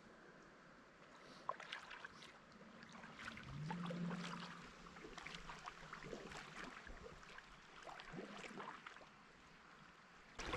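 Quiet paddling: faint, irregular splashes and drips of paddle strokes in the river water, with a brief low hum about a third of the way through.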